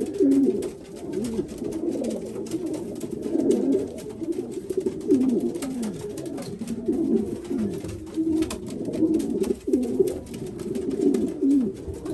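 Several racing pigeons cooing together in a loft, overlapping low cooing calls throughout with faint scattered clicks and taps.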